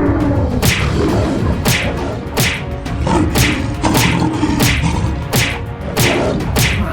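Action soundtrack music with a steady beat of sharp, swishing hits about every two-thirds of a second over a continuous low bass.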